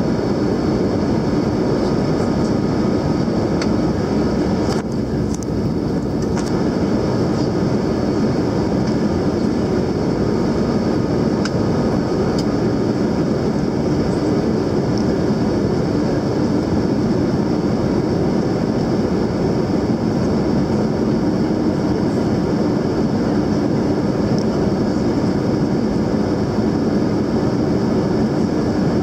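Cabin noise of an Airbus A321neo on approach, heard at a window seat beside the engine: a steady rush of engine and airflow with faint steady hums on top. The rush dips briefly about five seconds in.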